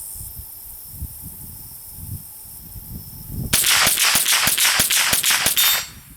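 A rapid string of gunshots, about fifteen in roughly two and a half seconds, starting a little over halfway in and stopping abruptly.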